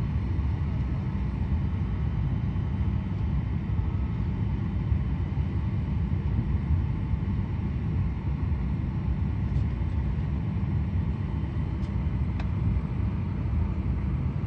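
Steady low rumble of an airliner cabin parked at the gate, the hum of its ventilation and engines, with a few faint ticks about ten and twelve seconds in.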